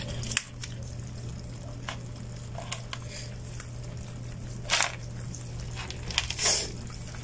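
Live crabs in a plastic basin, with scattered wet clicks, scratches and squishes from their shells and legs. Two longer rustles come near the end, over a steady low hum.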